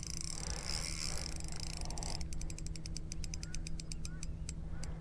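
Fishing reel clicking in a quick run of sharp ticks that slows and stops near the end, as a hooked flathead is played, over a steady low hum.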